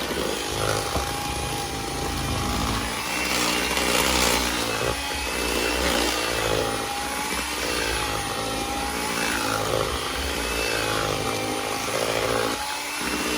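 Electric mixer running steadily, beating eggs into creamed butter and sugar, with a motor whine that wavers slightly in pitch.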